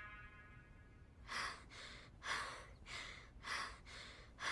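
A music track's last note dies away, then a person breathes heavily and quickly, short breaths about every half second, starting about a second in.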